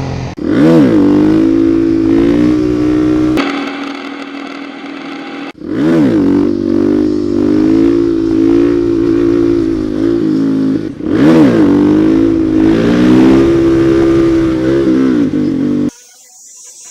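Off-road motorcycle engine revving hard: three times the pitch rises sharply and then holds high and steady under load. Each stretch ends in an abrupt cut.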